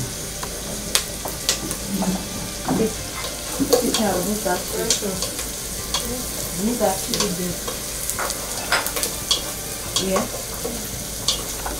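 Onions frying and sizzling in hot oil in a pan, stirred with a spoon that scrapes and clicks against the pan at irregular moments.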